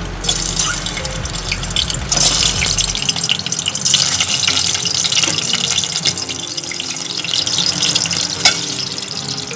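Peeled hard-boiled eggs going into hot oil in a steel pan, the oil sizzling and crackling; the sizzle gets louder about two seconds in as more eggs are added.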